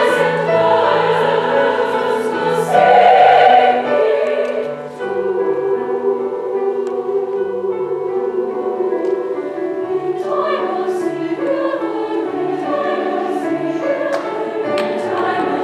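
Large concert choir singing sustained chords, swelling to its loudest about three seconds in, then dropping back to a softer passage about five seconds in.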